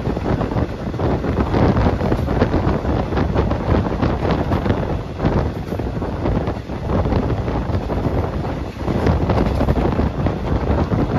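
Wind buffeting the microphone: a loud, uneven rushing that swells and dips.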